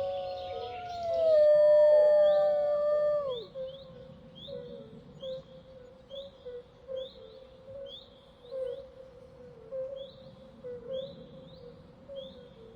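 Gray wolf howling: one long, slowly falling howl that ends in a sharp downward drop about three seconds in. After it, a short high chirp repeats over and over, about every 0.7 seconds.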